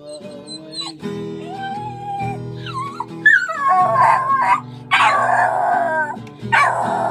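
A dog howling along to a strummed guitar: steady chords underneath, and from about three seconds in three long howls that rise and fall in pitch.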